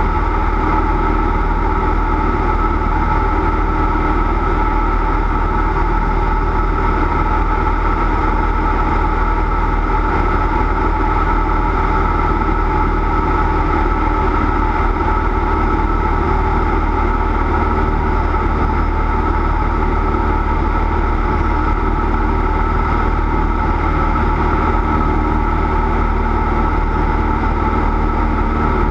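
Cessna 172's piston engine and propeller running as a steady, unchanging drone.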